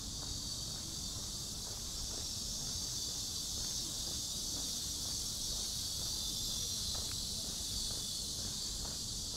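A steady chorus of insects, a continuous high-pitched shrill hum, over a low outdoor rumble, with a few faint ticks.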